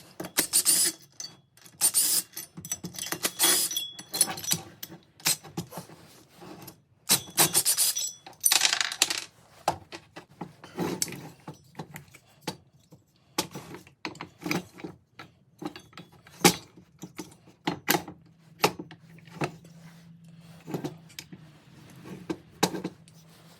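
Hand tools and small metal parts clinking, jingling and rattling, with scraping in between; the busiest jingling comes in the first few seconds and again around the eighth second.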